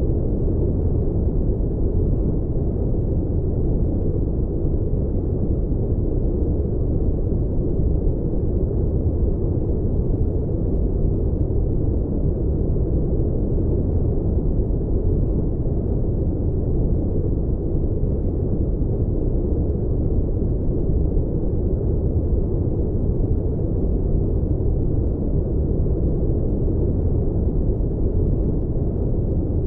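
Steady brown noise in the style of an aircraft cabin drone: an even, deep rumble with no hiss on top, unchanging throughout.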